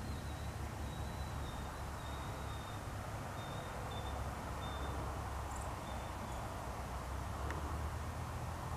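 Four-cylinder piston engines of light aircraft running at low taxi power, a faint, steady, distant drone.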